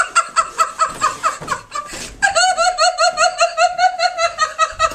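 A woman's high-pitched, helpless laughter in quick, even "ha" pulses of about five a second, broken by a breathy gasp about two seconds in before it starts again.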